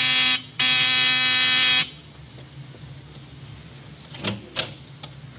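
Electric buzzer sound effect in an old radio drama: a short buzz, then a longer steady buzz of just over a second, pressed to summon an attendant.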